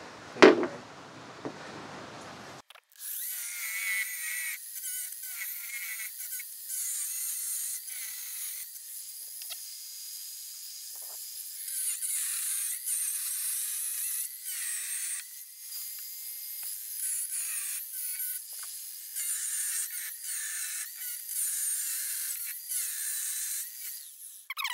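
An angle grinder's disc cutting through a metal frame rail: a shrill, high grinding that starts, stops and changes pitch as the cut goes in short passes. It begins suddenly about three seconds in, after a brief loud sound.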